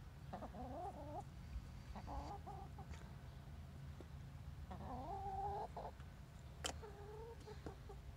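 Chickens making the repeated 'buk-buk' clucking call in about four short bouts of quick notes. A sharp click about two-thirds of the way in, over a steady low rumble.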